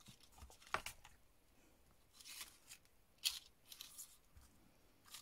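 Faint, brief rustles and light taps of glitter-paper flowers being handled and set down on a cutting mat, a handful of separate small sounds.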